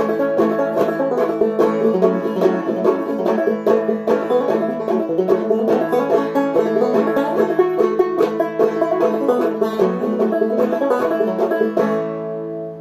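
Five-string banjo in eAEAB tuning played solo in up-picking style: a steady stream of quickly plucked melody notes. Near the end the playing stops on a final chord that is left ringing and fading.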